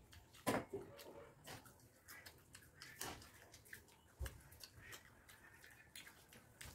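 Quiet sounds of eating rice and curry by hand from a steel plate: a short clink of a small steel bowl near the start as curry is tipped out, then scattered wet chewing, lip and finger sounds as rice is mixed by hand, with a soft thump a little past the middle.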